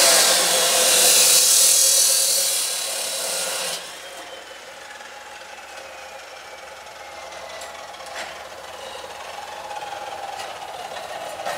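Abrasive chop saw grinding through metal ladder-rack tubing, a loud hissing grind for the first few seconds that stops suddenly about four seconds in as the cut finishes. The cut-off wheel then spins down with a falling whine, and a few sharp clicks follow.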